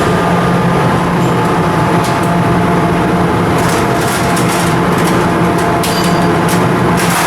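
Ship's diesel engine running steadily: a loud, even drone with a constant low hum and a few faint metallic ticks over it.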